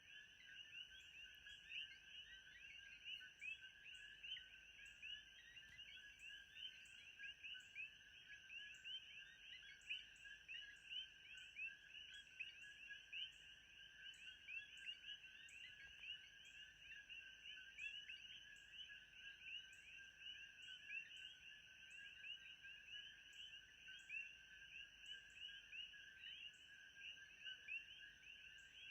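Faint steady chorus of many small animal calls: dense overlapping chirps with a steady high tone, and a short high tick repeating a bit more than once a second.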